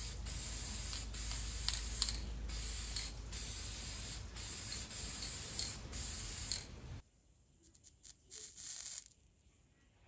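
Aerosol can of black spray paint hissing in a run of long bursts with brief breaks, stopping about six and a half seconds in, then one shorter burst a little later.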